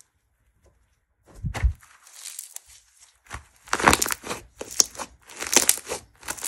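Pink textured slime, a mix of fizz slime and icing slime, squeezed and pressed by hand, giving crisp crackling, crinkly squishes in quick bursts. There is a low thump about one and a half seconds in.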